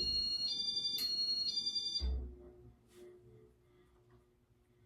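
Casablanca Inteli-Touch fan control board beeping loudly: a two-tone electronic chirp alternating high and low notes, four notes over about two seconds, ending with a low thud. A faint steady hum from the fan follows. The owner thinks the beeper sounds like it is starting to wear down.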